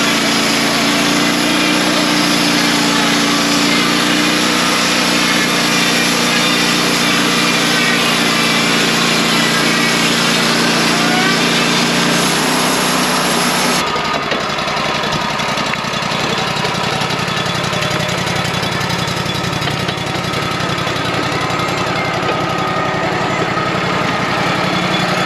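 Wood-Mizer LT35 portable bandsaw sawmill running steadily with its engine under way, as during a cut through a pine log. About fourteen seconds in, the sound changes abruptly and the high hiss drops away.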